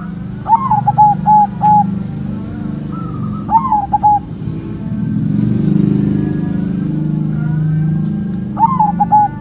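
White zebra dove (perkutut) singing three phrases of its cooing song, each a rising note followed by a quick run of short staccato notes: a long phrase near the start, a shorter one about halfway, and another near the end. A steady low rumble runs underneath and swells through the middle.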